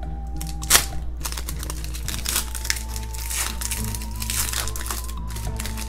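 Foil wrapper of a Donruss NASCAR trading-card pack crinkling and tearing as it is pulled open by hand, with one sharp rip about a second in. Soft background music plays underneath.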